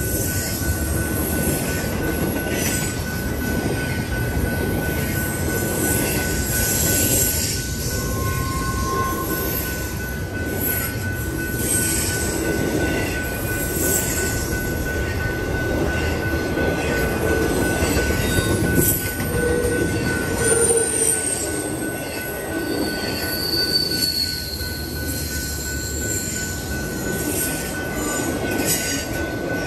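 Double-stack intermodal freight train's container well cars rolling past: a steady rumble of steel wheels on the rails, with scattered high-pitched wheel squeals.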